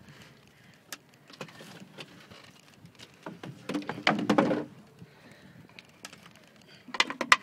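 Scattered knocks and clicks on wood, with a louder jumble of knocking and scraping about four seconds in and a quick cluster of clicks near the end.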